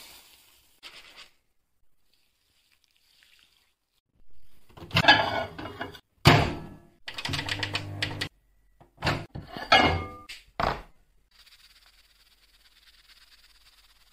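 Dry oat flakes pouring briefly into a bowl, then a run of loud clunks and knocks from handling a microwave oven: its door opening and shutting and its dials being turned. Near the end a faint steady hum sets in, the microwave running.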